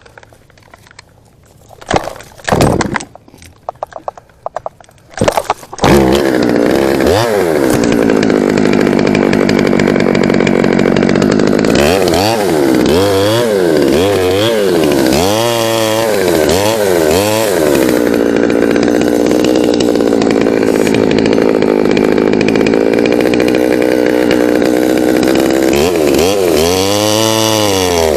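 After a few short loud bursts, a two-stroke chainsaw starts running about six seconds in. Its engine then revs up and down repeatedly, typical of cutting through a tree limb.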